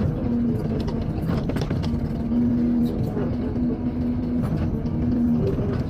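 Excavator engine running steadily under a low rumble, with a whining tone that breaks off and comes back several times.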